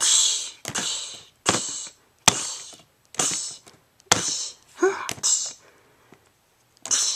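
Mouth-made sword-fight sound effects: a string of short hissing bursts, about one a second, with a short voiced grunt about five seconds in.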